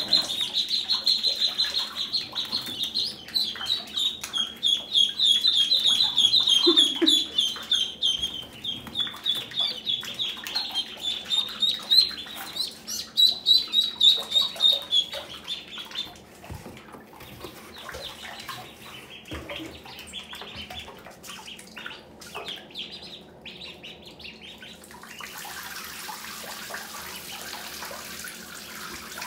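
A group of Pekin ducklings peeping rapidly and loudly in a tiled shower, the calls thinning out and going quieter about halfway through. Near the end a steady rush of running water starts.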